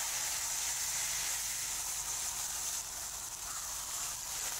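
Steady sizzling hiss from oil and alcohol burning on a hot flat-top hibachi griddle under a flaming onion volcano, easing slightly about halfway through.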